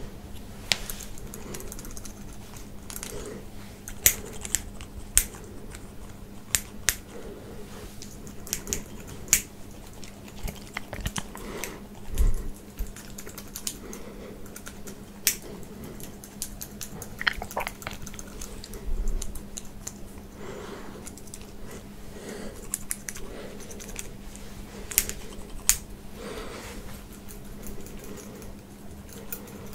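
Scattered crisp clicks and snips close to the microphone, coming irregularly with no steady rhythm, with a couple of soft low thumps.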